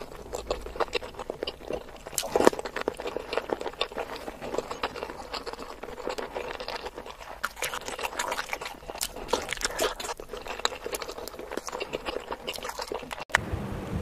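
Close-miked chewing of masala-coated boiled eggs: wet mouth smacks and many sharp little clicks, one louder click a couple of seconds in. The sound drops out briefly near the end.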